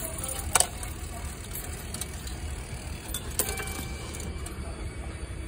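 Coins being fed into a subway ticket machine's coin slot, with a sharp clink about half a second in and a few softer clicks later, over a steady low hum.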